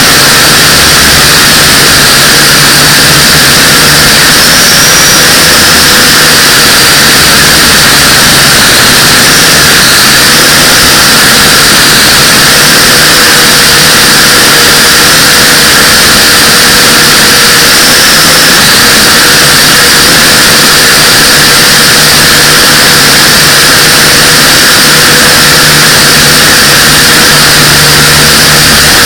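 Pioneer UFO 509V quadcopter's motors and propellers running in flight, a steady, very loud, distorted whir with faint tones that drift slightly in pitch as the throttle changes.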